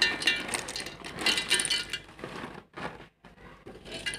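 Cashew nuts poured from a plastic bag into a stainless-steel mixer-grinder jar, clattering against the metal. It comes in two spells: a dense run of clicks over the first couple of seconds, then a few more near the end.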